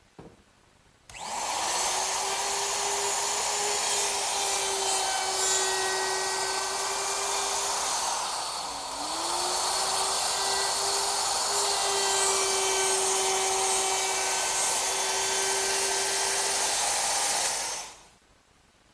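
Handheld router with a 1/4-inch roundover bit spinning up and running as it cuts a shallow roundover along the edges of a wooden 2x6. It comes up to speed about a second in, its pitch dips briefly about halfway through, and it stops near the end.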